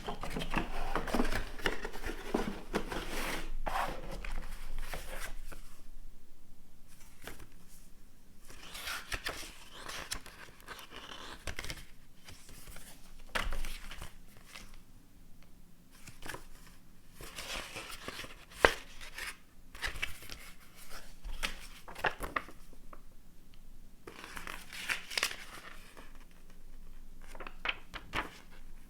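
Packaging being handled during an unboxing: rustling and crinkling in irregular bursts, with scattered clicks and taps. One sharp click about two-thirds of the way through is the loudest sound.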